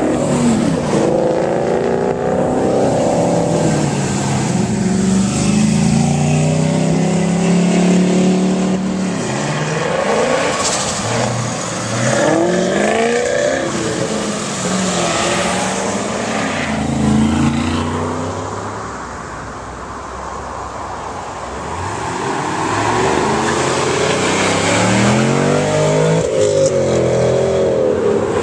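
Car engines revving and driving past, their pitch rising and falling again and again, with a quieter stretch about two-thirds of the way through.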